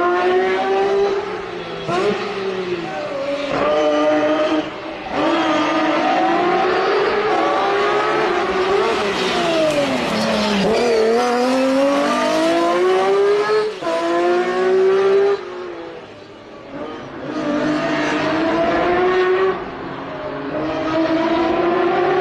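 Lancia Stratos HF's Ferrari Dino V6 engine being driven hard: the pitch climbs repeatedly and drops back at each gear change. Around ten seconds in the pitch sweeps down and rises again, and it goes quieter for a moment about sixteen seconds in.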